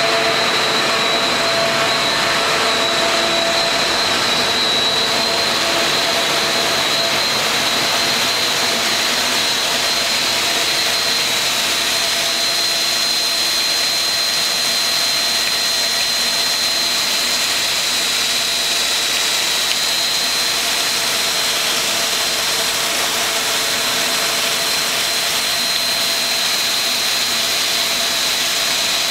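Large external cylindrical grinder grinding a big steel roll under a flood of grinding fluid: a steady hiss of machine and coolant noise with a constant high whine.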